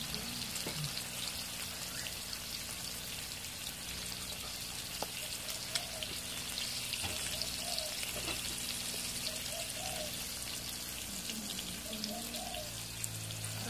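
Whole marinated fish frying in hot oil in a wok: a steady sizzle with many small crackles and pops.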